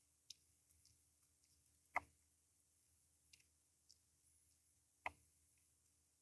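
Near silence with a few faint clicks and taps of small tools and hardware being handled, two sharper clicks standing out about two and five seconds in.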